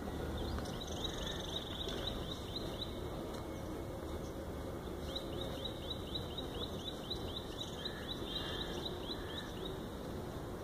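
A bird singing two long runs of short, quick, repeated high notes, about four or five a second, over steady outdoor background noise.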